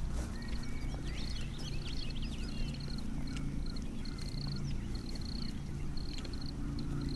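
Outdoor birdsong: several quick chirps in the first few seconds and a short, high trill repeating every second or so, over a steady low background rumble.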